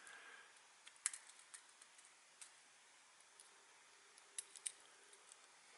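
Near silence with a few faint, light clicks of small electric clock motor parts being pushed into place by hand.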